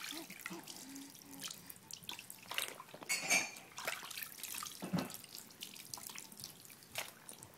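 Bathwater sloshing, trickling and dripping in a plastic infant bathtub, in irregular small splashes with a brighter splash about three seconds in.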